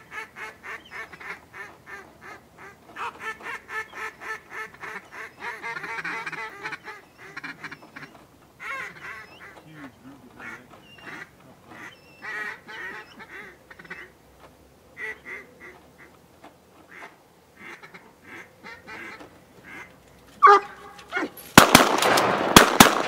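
Runs of rapid mallard-type quacks, in quick series with pauses between them, with a loud call shortly before the end. Near the end several shotgun blasts go off close together amid loud noise.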